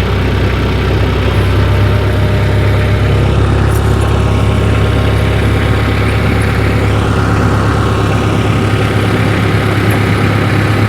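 Tractor engine running steadily at low speed while the tractor creeps forward to pull a tire chain over the tire.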